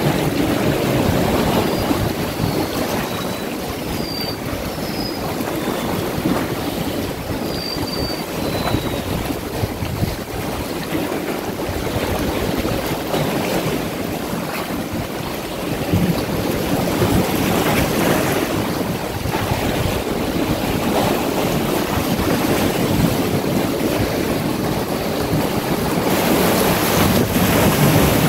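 Sea waves washing and breaking around shoreline boulders in repeated surges, with wind buffeting the microphone. A few brief high chirps sound in the first third.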